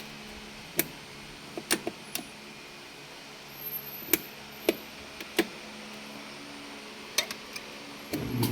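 Irregular sharp clicks and taps from handling the Whirlpool dryer's repaired timer selector knob, over a steady low hum.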